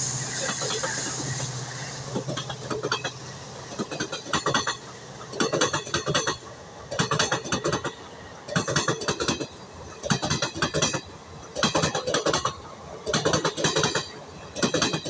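Diesel-hauled passenger coaches rolling past at speed, their wheels clattering over a rail joint in a double clack about every one and a half seconds as each pair of bogies crosses it. The diesel locomotive's engine fades away over the first couple of seconds.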